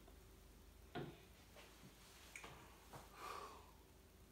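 Near silence: kitchen room tone with a few faint, light clicks spread a second or so apart.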